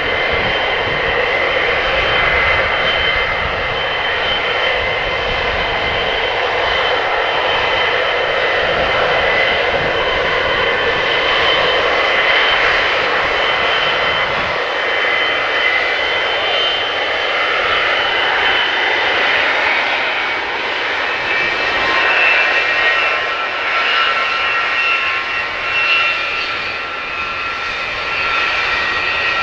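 Boeing 707 jet engines running loudly and steadily, with a high whine over the rush of the exhaust; about two-thirds of the way through the whine changes pitch and splits into several tones.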